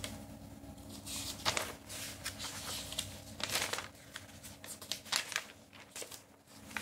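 Paper rustling and crinkling: a string of short, irregular crackles as pages are handled.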